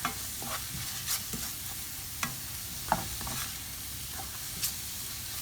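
Grated onions frying in hot oil in a pan with a steady sizzle, stirred with a utensil that scrapes and taps against the pan about six times at irregular intervals. The onions are being sautéed until light brown.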